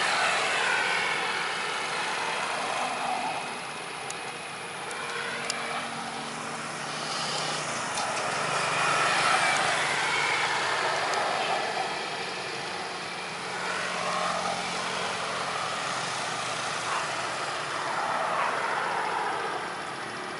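Outdoor rumble of passing road vehicles, the noise swelling and fading several times as they go by.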